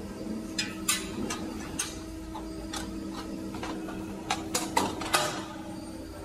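Metal parts clicking and clacking on an intercooler core builder machine over a steady machine hum: about ten sharp knocks, several in quick succession about four to five seconds in.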